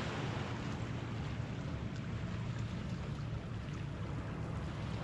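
Steady wind noise buffeting the microphone, with a faint wash of water at the shoreline underneath.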